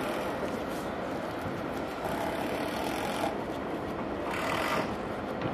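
Steady, even noise of an Airbus A330-300 airliner's jet engines at a distance, with no sharp events.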